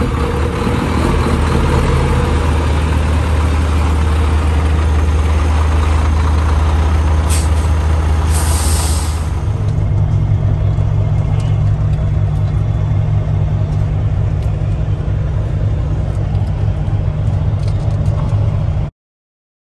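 Heavy truck's diesel engine running steadily, with sharp hisses of air brakes venting about seven to nine seconds in. The engine note then steps up to a higher steady pitch. The sound cuts off abruptly near the end.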